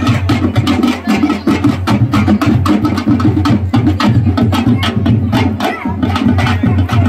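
Koraputia tribal baja band playing dhemsa dance music: drums beating a fast, unbroken rhythm of about five strokes a second.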